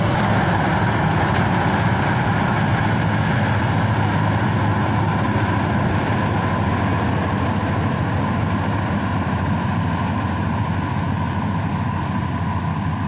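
Marksan K-Bos Mudmaster MS-1200 rice combine harvester running steadily while cutting ripe paddy, a constant low engine hum with machinery noise over it, growing slightly fainter as the machine moves away.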